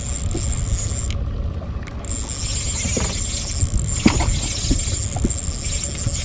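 Steady low rumble of wind and boat noise on an action-camera microphone aboard a small fishing boat, with a thin steady high whine and a few faint clicks about midway.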